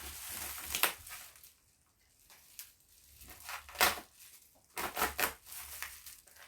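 Packing wrap being pulled off and crumpled by hand: irregular crinkling and tearing with sharp crackles, easing off for about a second near the start.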